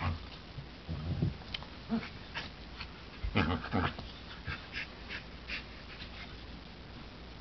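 Black border collie–golden retriever mix play-wrestling with a golden retriever puppy and making loud play growls in irregular bouts. The loudest bouts come about a second in and around three and a half seconds in, with short sharper sounds in between, dying away near the end.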